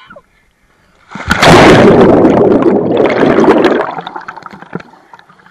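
Rush of churning, bubbling pool water as the waterproof-cased camera plunges underwater, muffled through the case. It starts suddenly about a second in, stays loud for about two and a half seconds, then dies down to faint crackling of bubbles.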